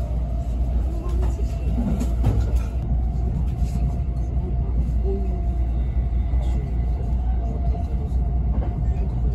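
JR E657 series electric train running at speed, heard from inside the passenger cabin: a steady low rumble of wheels on rails with a faint constant hum above it.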